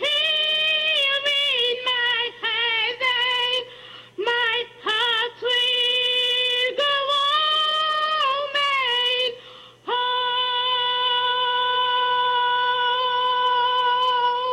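High-pitched female karaoke singing into a handheld microphone: a string of short, choppy notes, then one long held high note for the last four and a half seconds.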